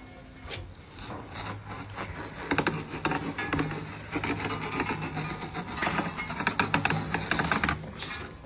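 A blade cutting and scraping through the hide at the edge of a drum head, trimming off the excess. It makes a rapid run of scratchy, rasping strokes that grows denser after about two seconds and stops shortly before the end.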